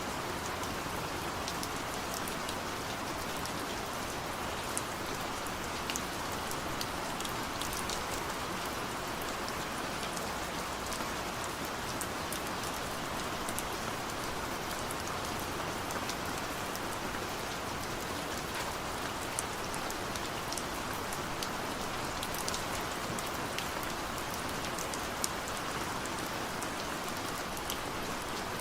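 Steady rain falling on a surface, a constant hiss with many small drop ticks and patters scattered through it.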